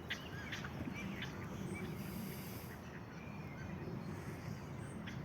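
Faint scattered bird calls over a steady low outdoor background rumble.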